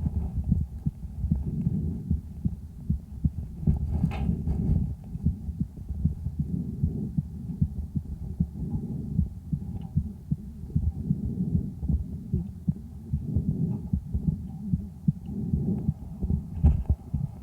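A sick calf's lung sounds on the second day of illness, picked up through a stethoscope microphone pressed to the right side of the chest. They are low and muffled, with breath noise swelling and easing and the heartbeat coming through.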